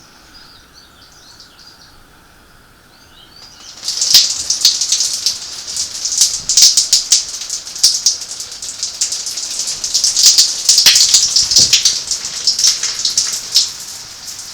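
Water from an outdoor shower starts spraying and splattering about four seconds in, a loud, crackling hiss, after a few seconds of faint bird chirps.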